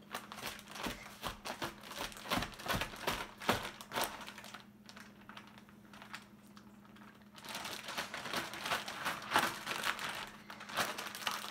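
Plastic zip-top bag crinkling as chicken pieces are mixed inside it with an almond- and tapioca-flour coating. The crinkling eases off for a couple of seconds around the middle, then picks up again.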